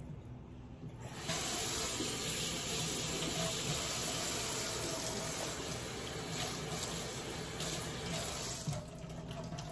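Water running steadily from a kitchen tap, turned on about a second in and easing off near the end.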